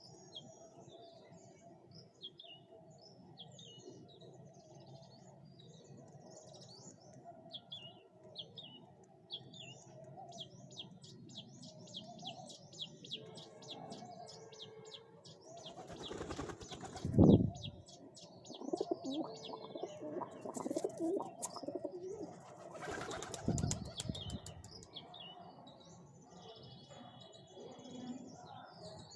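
Pigeons flapping their wings in two loud flurries, about halfway through and again about two-thirds through, over low pigeon cooing and small birds chirping.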